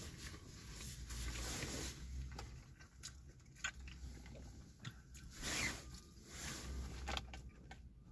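Faint chewing of salted french fries, with soft mouth clicks and a couple of hissy swells.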